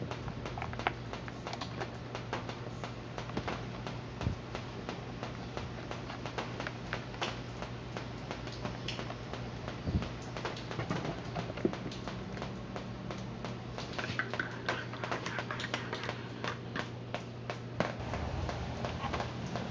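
Irregular small clicks, taps and rattles of hands handling the plastic fan base and its wiring, over a steady low hum.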